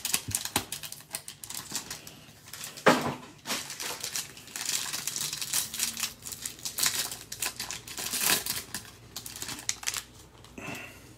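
Foil and plastic wrapping of a trading-card pack crinkling and tearing as it is pulled open by hand, with many small irregular clicks and one sharp snap about three seconds in.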